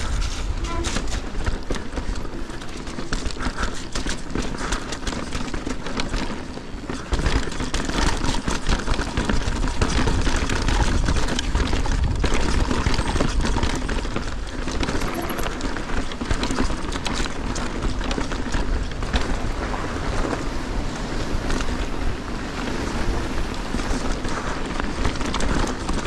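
Mountain bike riding fast down a rough dirt trail: wind buffeting the camera microphone, with tyres on dirt and gravel and constant rattling and clicking from the bike over bumps, getting louder about seven seconds in.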